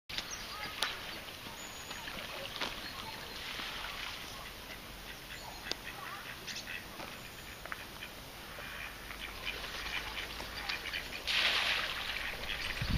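Waterfowl on the bank giving short, scattered calls, with a brief rush of noise near the end.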